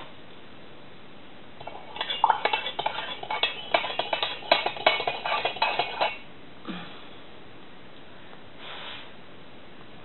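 A metal spoon stirring sugar into a cup of tea, clinking quickly and irregularly against the cup for about four seconds, then a single soft knock.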